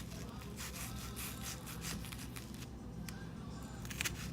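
Chef's knife slicing through a purple onion on a cutting board: a run of short rasping strokes about three a second, a brief pause, then a few sharper strokes near the end.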